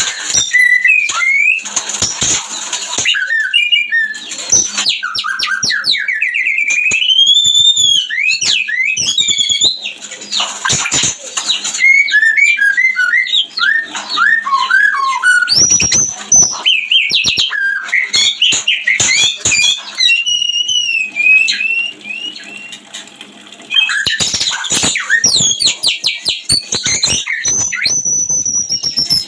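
White-rumped shama (murai batu) mating song: a loud, varied run of clear whistles, rising and falling glides and quick trills, mixed with short scratchy notes. It goes briefly quieter about 22 seconds in.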